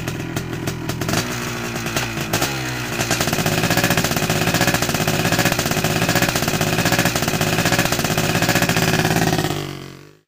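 Motor engine running and revving as the sound of the sleigh taking off, steady for most of the time with a shift in pitch about two seconds in, then fading away near the end.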